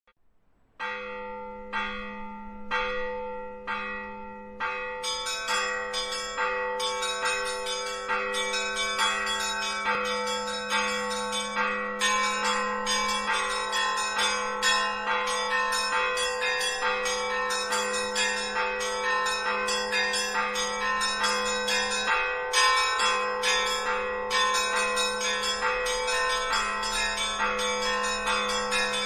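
Church bells ringing. Four single strokes come about a second apart, then many bells of different pitches join in a quick, continuous peal over a low, lingering hum.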